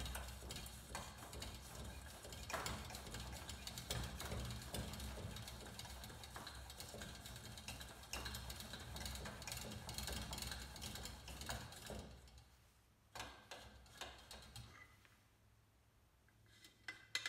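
Hand air pump of a 1955 Coleman Model 236 lantern being worked, a dense run of small clicks and knocks for about twelve seconds as the fuel tank is pressurized to test the repaired check valve. After that it goes quieter, with a few separate knocks as the lantern is handled.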